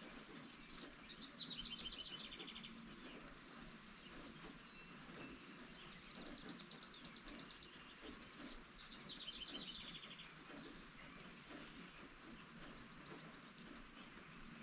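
Steady light rain with a songbird singing: a fast trill that falls in pitch, twice, and a high steady trill between them.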